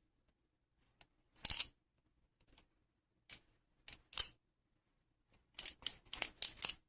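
Kershaw Lucha balisong (butterfly knife) being flipped: its handles clack sharply against each other, a few single clicks and then a quick flurry of about seven clacks near the end.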